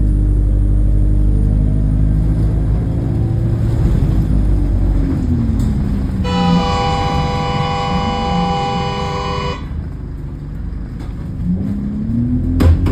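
A bus engine running with a steady low rumble. Its pitch falls as the bus slows and rises again as it pulls away near the end. A vehicle horn sounds for about three seconds in the middle, and there is a sharp knock just before the end.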